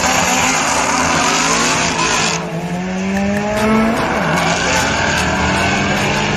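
Race car engine accelerating hard on a drag strip, its pitch rising in a slow climb, with a short drop in pitch about four seconds in.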